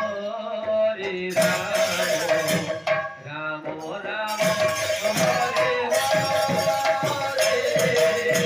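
Sambalpuri folk dance music: a barrel drum beating a steady rhythm under a held melody line that slides in pitch, thinning out briefly about three seconds in.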